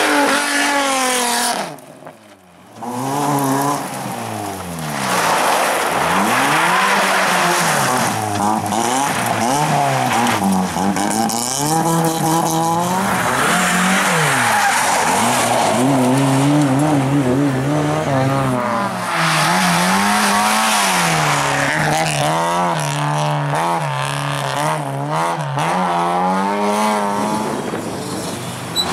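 Rally cars driven hard on a gravel slalom one after another, engines revving up and falling off again and again through the turns, with tyres skidding on loose gravel. The sound drops away briefly about two seconds in.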